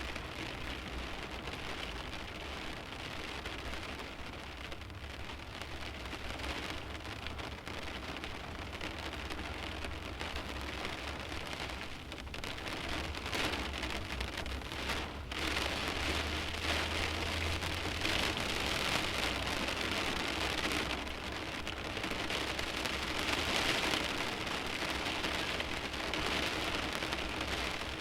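Rain pattering steadily on a parked car's windshield, with no engine or road noise, heard from inside the car. The rain grows heavier and louder about halfway through.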